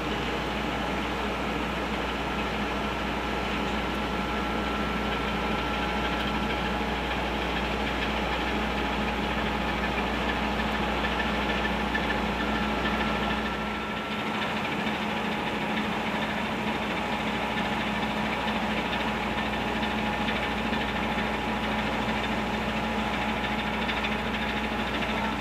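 The training ship Kaiyu Maru's engines run with a steady mechanical drone as the ship moves off along the pier. The deepest rumble drops away about halfway through.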